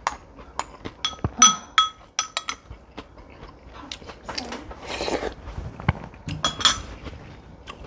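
Metal spoon and chopsticks clinking and scraping against ceramic bowls while eating: a quick run of ringing clinks in the first two and a half seconds and another pair a little after six seconds. In between there is a soft noisy eating sound as the spoon goes to the mouth.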